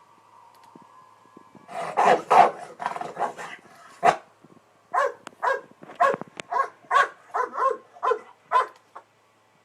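A dog barking: a dense burst starting about two seconds in, then a steady run of short barks, about two a second, that stops shortly before the end.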